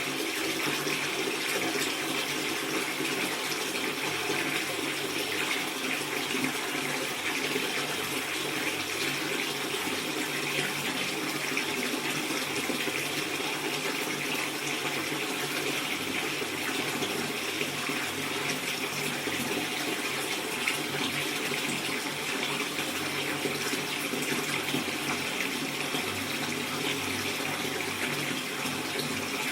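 Water running steadily from a tap into a bathtub, filling it, with an even splashing rush.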